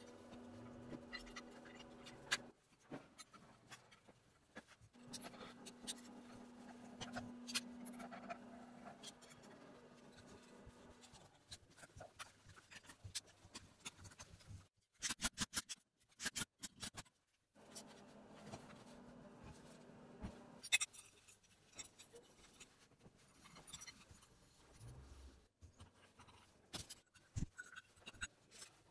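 Hand assembly of blackened steel belt-grinder parts: light clicks and scrapes as the parts are handled and socket-head screws are turned in with a hex key. A faint steady hum runs under it in stretches.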